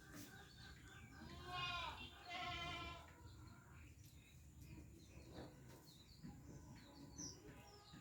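A goat bleating twice in quick succession, about a second and a half in. The first call arches up and down in pitch; the second is slightly longer and steadier.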